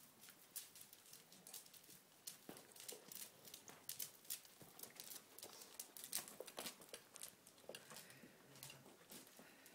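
Near silence, broken by faint, irregular clicks and rustles.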